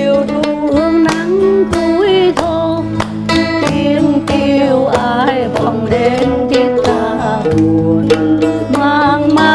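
Mandolin picking out a slow melody over acoustic guitar chords, a plucked-string duet of an old Vietnamese song.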